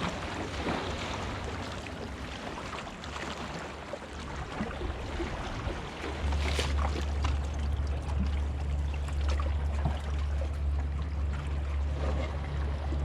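Sea washing against the rocks, with a low rumble that grows louder about six seconds in and holds steady after.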